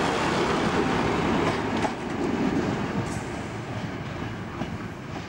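Railway passenger coaches rolling past close by, a loud steady rumble of wheels on rail, which drops suddenly about two seconds in to a much quieter, lighter rail background with a few short clicks.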